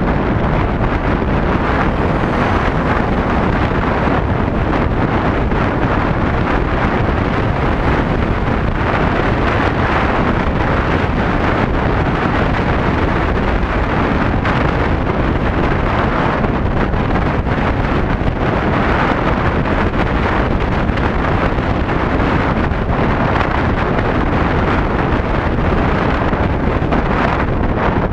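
Loud, steady wind rush buffeting the microphone of a camera mounted on a moving Yamaha Tricity scooter at riding speed, with road noise from the ride blended in.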